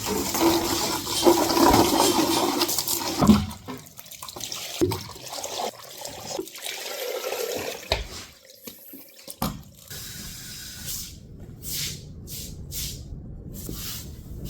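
Liquid splashing and running, densest for about the first three and a half seconds, then broken up by scattered knocks and short hissing bursts.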